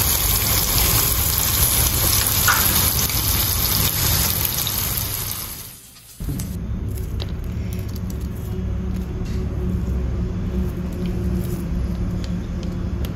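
Sardines sizzling steadily in hot oil in a shallow pan with curry leaves. The sizzle fades out about six seconds in. It gives way to a quieter, duller sizzle with a low steady hum under it.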